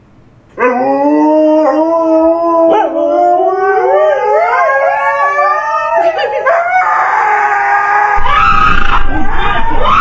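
Several dogs howling together: long held howls that rise slowly in pitch, with wavering bends. About eight seconds in, a person's scream comes in over them.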